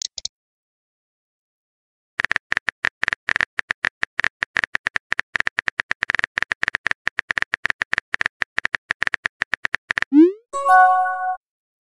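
Rapid, steady keyboard tap clicks from a texting-story app as a long message is typed, starting about two seconds in and running about eight seconds; then, about ten seconds in, a rising swoosh and a short chime as the message is sent.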